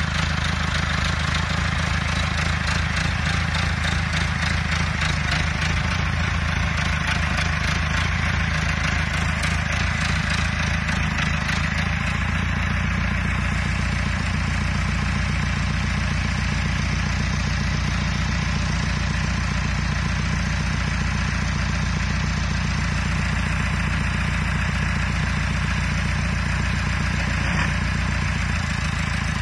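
Massey Ferguson tractor's diesel engine idling steadily at an unchanging pitch.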